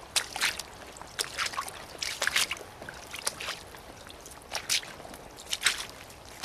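Soviet-made 'Red Bogatyr' rubber boots stepping through wet leaves, mud and shallow water: uneven squelching, splashing footsteps.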